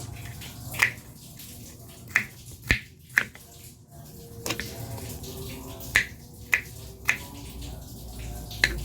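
Sharp kitchen clicks and taps from preparing food, about eight of them at uneven gaps, with faint water sounds underneath.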